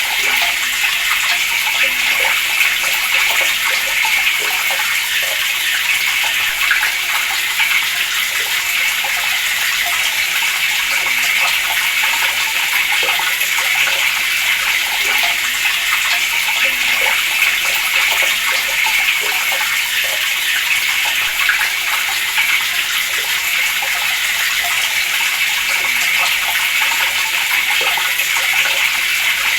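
Water running steadily from a tap, an even splashing flow.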